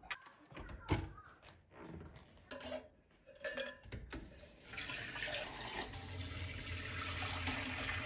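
A few sharp knocks and clinks, the loudest about a second in, then from about four seconds in a kitchen tap runs steadily into a stainless steel pot in the sink.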